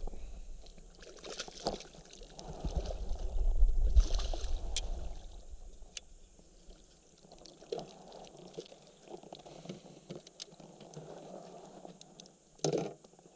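Water splashing and dripping beside a kayak as a hooked smallmouth bass is netted, with a few light knocks of gear against the hull. A low rumble on the microphone rises about three seconds in, and a short louder splash or rustle comes near the end.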